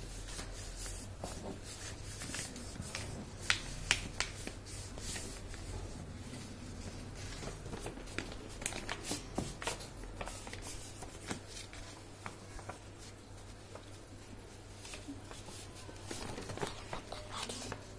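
A sheet of paper being handled, folded and creased by hand: irregular rustling and crinkling with scattered sharp crackles, the loudest a little after three and a half and four seconds in.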